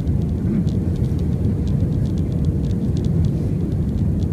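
Steady low rumble of airliner cabin noise during the approach to landing, engine and airflow noise heard from a window seat. There is a faint steady hum and a few light, scattered ticks.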